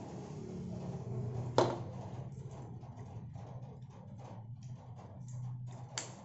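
A wine glass is set down on the table with a sharp clink about a second and a half in. Then plastic utensils make light scraping and tapping sounds in a paper box of rice, with another sharp tap near the end. A low steady hum runs underneath.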